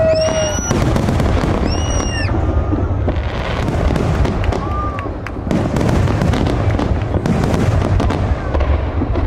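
Aerial fireworks display: deep booms of shells bursting overhead run into each other with no break, mixed with sharp cracks and crackle. A few short, high whistles rise and fall near the start and again about two seconds in.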